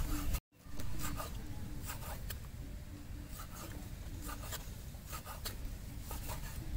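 Cleaver chopping raw pork on a round wooden chopping board: a run of short knocks, about two or three a second, with the blade scraping the board between strokes. There is a brief dropout about half a second in.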